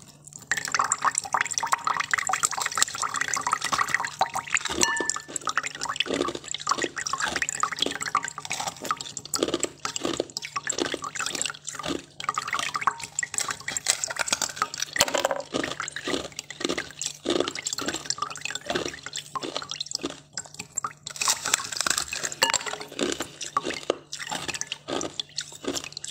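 Wet sucking and licking on a plastic-wrapped ball of coloured ice, with a dense run of crackly, clicky mouth sounds and meltwater dripping.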